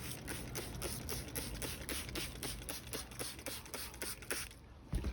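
Trigger spray bottle squeezed rapidly over and over, about four or five squirts a second, misting cleaning solution onto a car seat. The spraying stops near the end, followed by a low thump.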